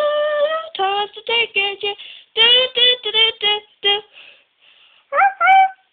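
A child singing a tune unaccompanied: one held note at the start, then a quick run of short sung notes, a pause, and two short rising notes near the end.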